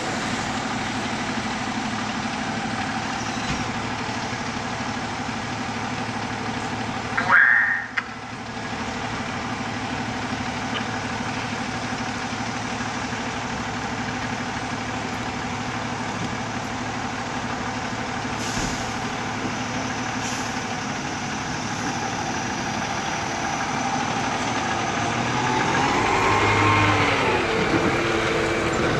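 Fire engine's diesel engine idling steadily, with a short, loud burst about seven seconds in. Near the end the engine revs up and falls back.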